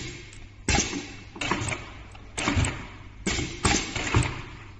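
Leather panels rustling and sliding in a series of short, irregular bursts as hands push and line them up under the presser foot of a double-needle sewing machine, over a steady low hum.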